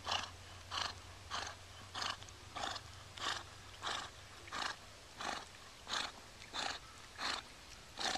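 A dog breathing hard in short, even huffs, about three every two seconds.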